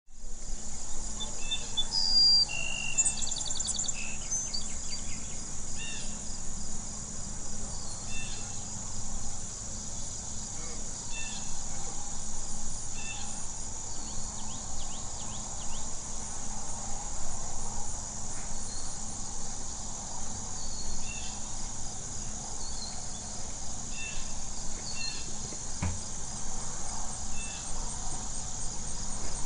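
Rural farm ambience: steady high-pitched insect chirring, like crickets, with scattered short bird calls throughout and a faint low hum underneath.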